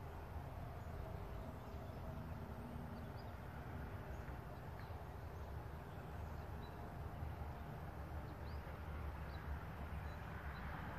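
Outdoor ambience: a steady low rumble with short, faint bird chirps now and then, and a soft hiss that swells near the end.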